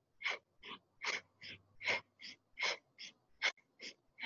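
A woman's rapid, rhythmic yogic breathing, a sharp inhale and exhale in turn, about two and a half breaths a second, paced to fast arm raises in a Kundalini breath-and-movement exercise.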